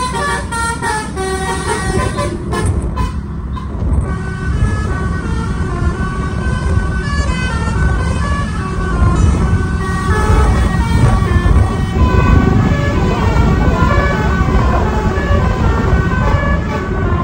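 A bus's multi-tone 'telolet' (basuri) horn playing a stepping tune over steady engine and road rumble.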